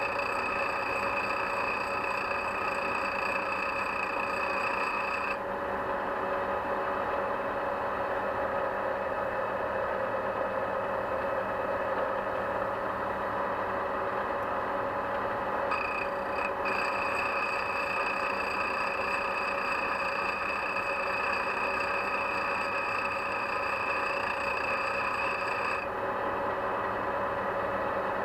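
Electric machine running steadily, spinning a diamond wheel that is facing the worn tip of a VAZ 'classic' valve stem to grind out the pit worn by the rocker arm. A high whine over the steady hum stops about five seconds in, returns around sixteen seconds in, and cuts off again near the end.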